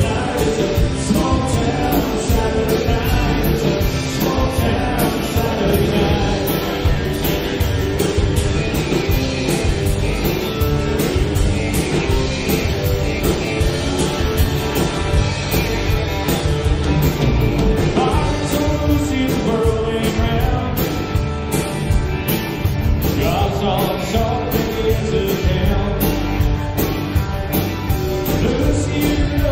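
Live country-rock band playing at full volume: drum kit, electric guitar and acoustic guitar, with a lead vocal over them.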